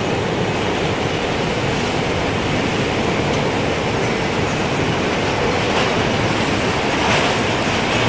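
Gusting wind rushing steadily, with a wind chime's faint high tinkles scattered through it. The wind swells briefly near the end.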